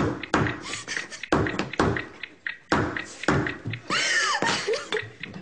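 A run of hard, irregular knocks, about one or two a second: whole walnuts in their shells being bashed on a kitchen counter with no nutcracker. A brief voice cry comes about four seconds in.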